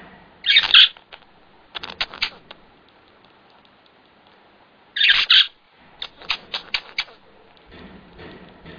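A pet animal's fits of sharp, explosive breaths, which the owner can't tell apart as coughing or sneezing. Twice, a loud rasping burst is followed by a quick run of several short, sharp puffs: once near the start and again about halfway through.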